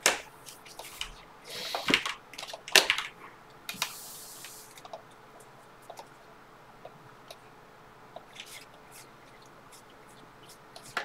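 A stack of trading cards being flipped through by hand: sharp clicks and short sliding rasps of card stock in the first few seconds, then only sparse light ticks.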